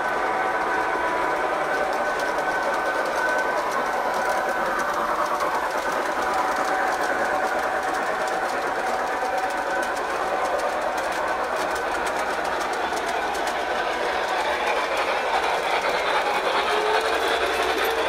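Model train running on the layout track: the steady whirring of the locomotive's electric motor and its wheels on the rails, with faint steady whining tones over it.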